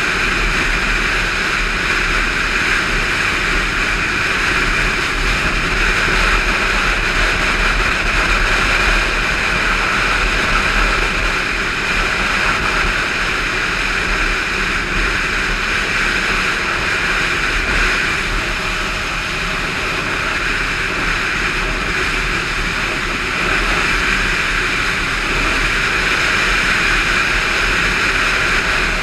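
Steady wind rush and road noise on a motorcycle-mounted camera at cruising speed, with the Indian motorcycle's engine droning underneath.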